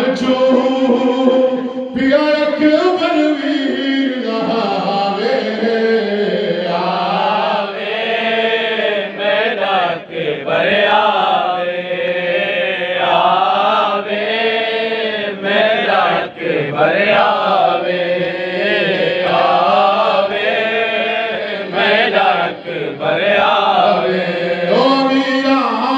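Voices chanting a noha, an Urdu mourning lament, in a continuous melodic line that rises and falls.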